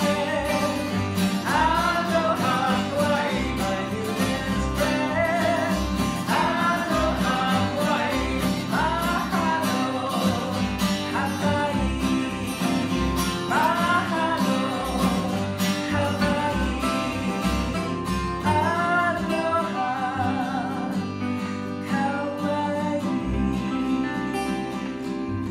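A woman singing a folk song while strumming an acoustic guitar, with a second stringed instrument played alongside and low bass notes on the beat. The singing stops near the end while the instruments carry on.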